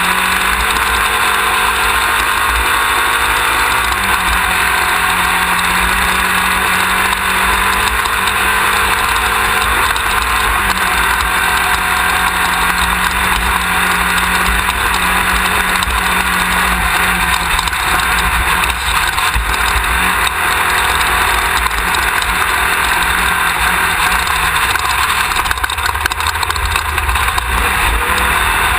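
Off-road race car's engine running continuously under steady loud driving noise. The engine note shifts slightly a couple of times.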